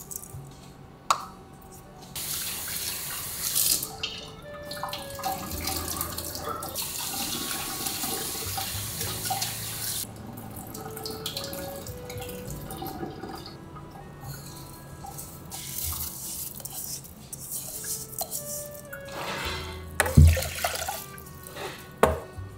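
Kitchen tap water running into a stainless steel bowl of white rice and quinoa and poured off as the grains are rinsed, in several bursts. Soft background music plays throughout, and a dull knock, the loudest sound, comes about twenty seconds in.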